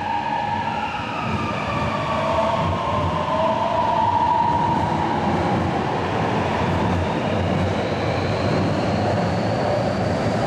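Xiamen Metro Line 2 B-type electric train pulling out of the station, its IGBT-VVVF traction inverters whining over the rumble of wheels on rail. Tones slide down in the first half, then a high whine climbs steadily in pitch as the train gathers speed.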